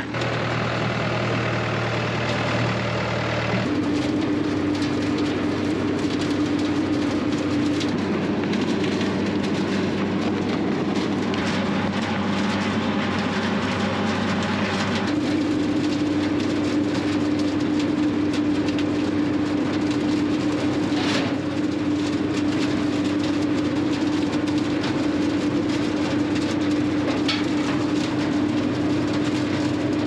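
Tractor-drawn bean picker running: its picking reel, conveyor and debris fan, with the pulling tractor's engine, make a steady mechanical drone with a held hum. The hum shifts higher about four seconds in.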